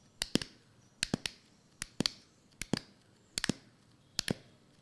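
Footsteps on a hard floor: sharp clicking steps about every three quarters of a second, often in quick pairs, as of more than one person walking.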